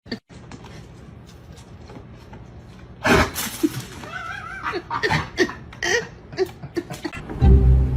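A sudden loud knock about three seconds in, followed by short voice-like sounds that may be laughter or an animal's calls, with music starting near the end.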